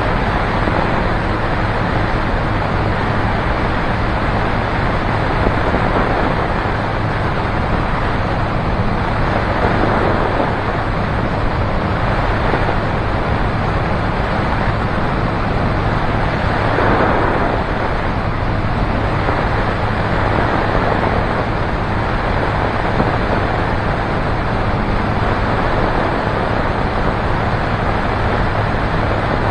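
Single-engine light aircraft in cruise: a steady engine and propeller drone with a constant low hum, under a loud rush of wind over the camera microphone that swells now and then.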